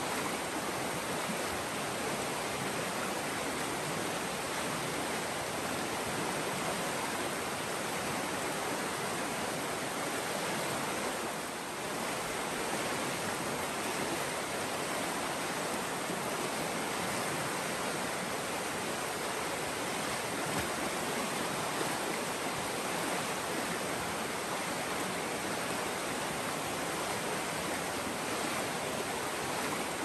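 River water rushing steadily, a dense even hiss of moving water.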